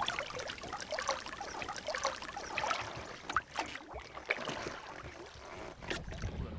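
Raft oar blade dipping into the river and lifting out: splashing and trickling water running off the blade, with a few sharper splashes in the middle.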